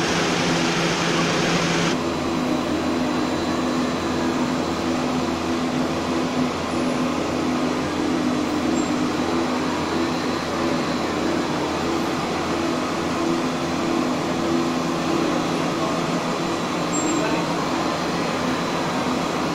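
Instant noodle production line machinery running: a steady mechanical hum and whir from the dough mixers and noodle-sheet rolling machine. A higher hiss cuts off about two seconds in.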